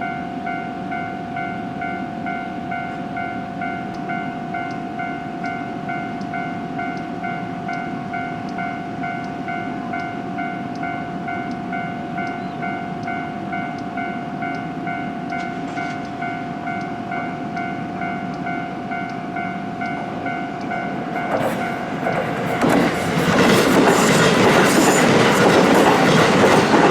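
A Japanese level-crossing warning bell rings in a fast, even pulse. About 22 seconds in, a JR West 223 series four-car electric train comes through the crossing, and its loud passing rush and wheel clatter on the rails drowns out the bell.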